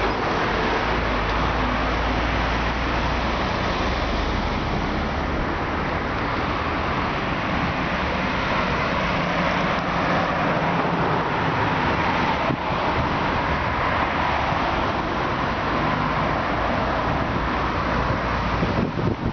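Road traffic noise: a large box truck passing close by with a low rumble for the first few seconds, then a steady rush of passing cars.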